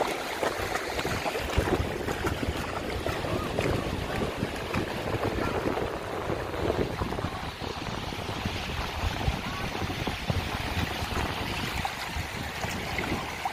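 Shallow sea surf washing and swirling over the sand, with wind rumbling on the microphone.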